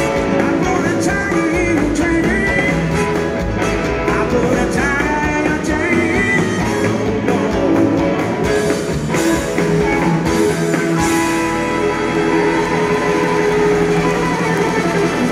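Live blues-rock band playing loud: electric guitar from a Stratocaster-style instrument over drums and bass, with the lowest part of the sound changing about eleven seconds in.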